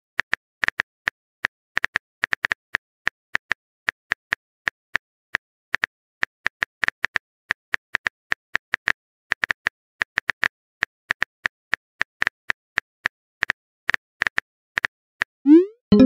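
Keyboard tap clicks from a texting-story app as a chat message is typed out, a few irregular taps a second, then a short rising pop near the end.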